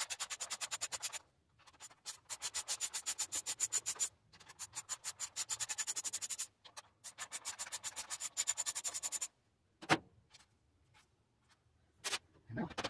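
Cobalt socket ratchet clicking rapidly, about a dozen clicks a second, in four runs of one to two seconds with short pauses between, as long bolts are backed out of a tankless water heater's heating element. A few single clicks follow near the end.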